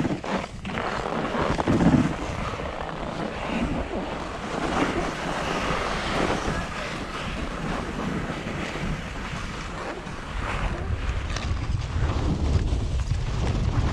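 Wind buffeting the microphone over a rushing hiss of sliding on snow. The low wind rumble grows heavier about ten seconds in.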